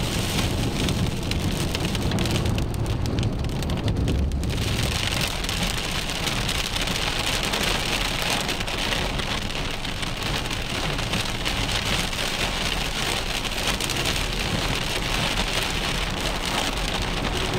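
Rain falling on a car's roof and windshield, heard from inside the cabin over a low steady rumble. The rain hiss gets louder and brighter about four and a half seconds in.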